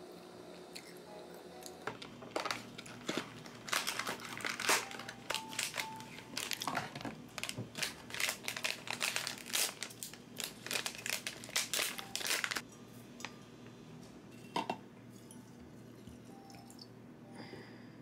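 Paper tea-bag packet being crinkled and torn open: a dense run of rustles and crackles that stops about twelve seconds in. A single knock follows a couple of seconds later, over faint background music.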